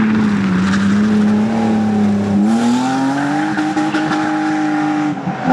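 Rally car engine held at high revs: its note sags a little, climbs about two and a half seconds in and holds high, then dips sharply for a moment near the end.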